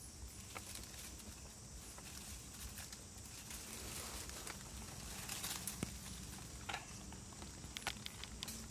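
Faint rustling and small scattered clicks of hands working the cord and bait of a bent-sapling snare trap, among dry leaves, with a steady high hiss behind.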